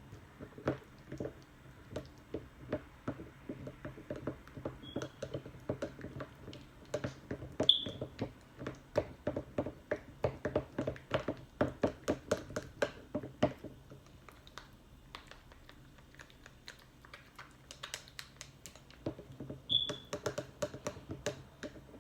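Plastic spatula stirring and scraping a thick butter-and-oil mixture in a small jar, making quick irregular clicks and taps with a few short high squeaks. The stirring eases off for a few seconds past the middle, then picks up again.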